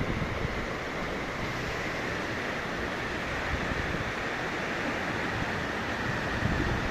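Steady rushing noise with wind buffeting the microphone in irregular low rumbles.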